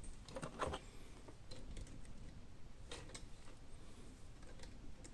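Faint, scattered clicks and taps of small plastic toy pieces being handled as a fallen minifigure is picked up and brought back to a plastic toy robot.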